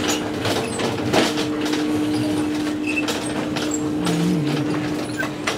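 Shopping cart rolling across a hard store floor, its wheels and wire frame rattling in a run of irregular clicks over a steady low hum.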